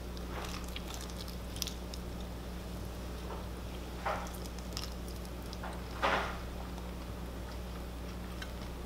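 Steady low hum, with a few soft short squishy noises, the loudest about six seconds in.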